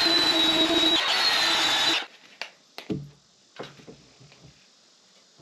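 Porter-Cable belt sander running, sanding the edge of the cutout in a sink base cabinet's front: a steady high whine over grinding noise that stops abruptly about two seconds in. A few light knocks follow as the sink is set into the cutout for a test fit.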